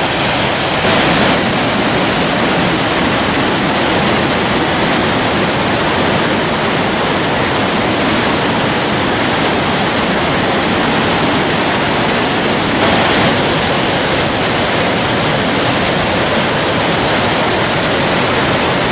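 Gullfoss waterfall on the glacial Hvítá river: a loud, steady, even rush of a great volume of falling and churning water.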